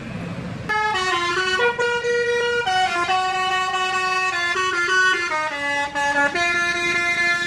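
Bus "telolet" horn, a multi-tone air horn playing a melody of changing notes. It starts about a second in, over the bus's engine and road noise, and keeps going.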